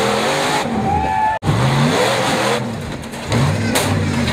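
A vehicle motor revving up and down in repeated rising pulses, with an abrupt break about a second and a half in.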